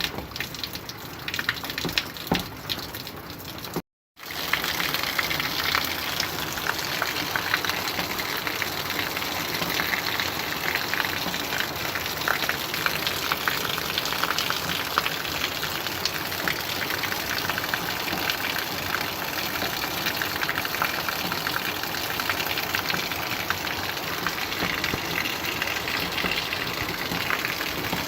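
Steady rainfall, a dense even hiss of water with some separate drip ticks in the first few seconds. About four seconds in it cuts out completely for a moment and then comes back at the same level.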